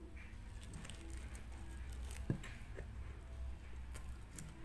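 Close-miked eating of homemade kimbap: soft chewing and small wet mouth clicks, with the seaweed wrap crackling as fingers pull the roll apart. One sharper click comes a little past halfway.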